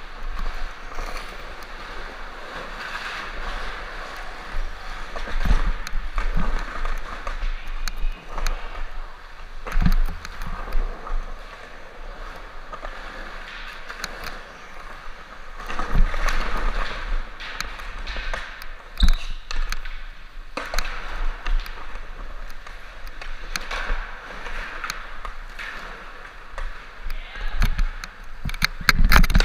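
Skateboard wheels rolling on a concrete floor, a rough hiss that swells and fades with speed, broken by sharp clacks of boards striking the concrete, loudest in a cluster near the end.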